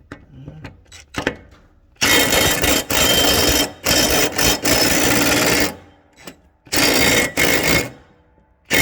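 Impact driver hammering on a stuck mower blade bolt in three bursts of a second or more each, pretty loud; the bolt does not break loose.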